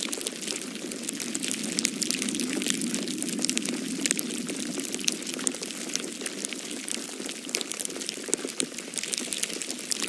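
Falling snow pattering down: a dense, irregular scatter of small ticks over a steady hiss.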